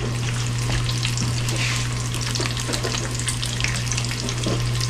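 Bacon strips sizzling and crackling in a frying pan, with frequent small pops, over a steady low hum.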